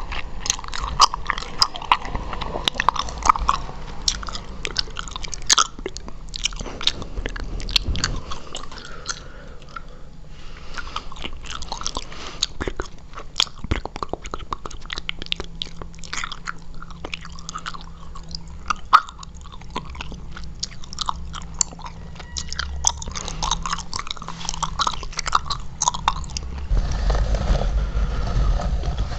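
Mouth sounds made while chewing gum: chewing with a dense run of quick clicks throughout, a little louder near the end.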